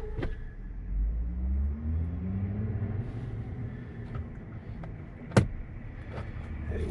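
A motor vehicle's engine running with a low rumble, its pitch rising for a couple of seconds as it speeds up. A single sharp click comes about five seconds in.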